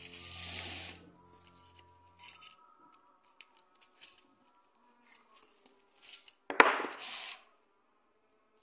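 Aluminium foil crinkling and rustling in short bursts as dough is rolled and cut on it, loudest in the first second and again in a sharper knock and rustle about six and a half seconds in.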